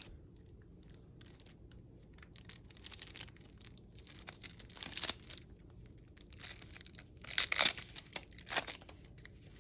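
A sealed Magic: The Gathering booster pack's wrapper being torn open and crinkled in the hands, in several separate rips and rustles, the loudest about seven to eight seconds in.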